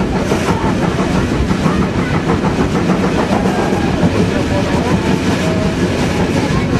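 Railway train running along the track, a loud, steady rumble of wheels on rails.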